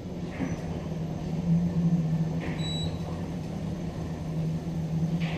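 ThyssenKrupp machine-room-less traction lift car travelling upward: a steady low hum of the car in motion, with a brief faint high beep near the middle.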